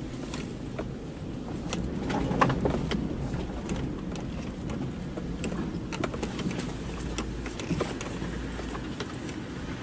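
Vehicle driving slowly over a rough forest dirt track: a steady low engine and road rumble with many short clicks and cracks from the tyres rolling over sticks and debris, a little louder about two seconds in.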